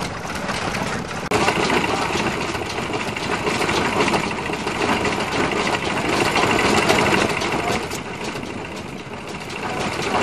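Vintage stationary engines running steadily with a rapid knocking beat. The sound changes abruptly about a second in, as one running engine gives way to another.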